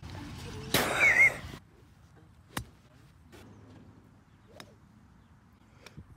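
Golf drivers striking balls: one sharp, loud click about two and a half seconds in, then fainter clicks of more strikes later on. Before the clicks, near the start, there is a loud burst of noise lasting under a second.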